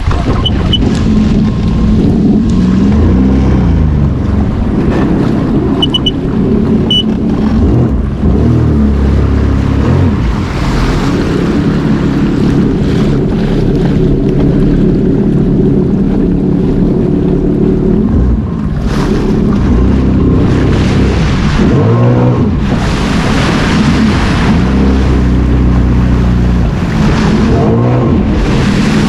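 Sea-Doo personal watercraft running on the water, its engine pitch rising and falling several times with the throttle, over a steady rush of water against the hull.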